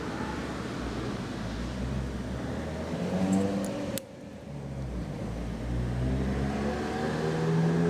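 CNC profile-cutting machine running, its motors giving a whine that rises and falls in pitch, with a sudden break about four seconds in.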